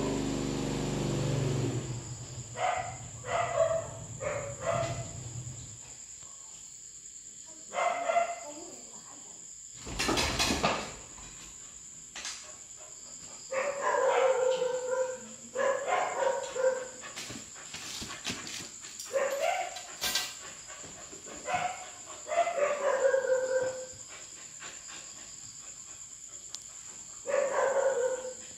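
Young Labrador puppy whining and yelping in short, often falling calls, in clusters, excited by someone arriving. About ten seconds in there is a loud, brief scraping noise.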